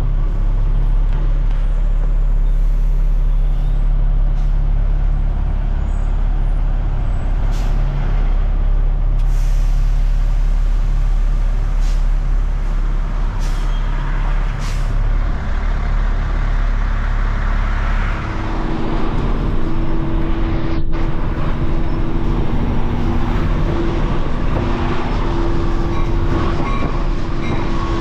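A large engine running steadily with a deep, even drone; about two-thirds of the way through, steady higher tones join it.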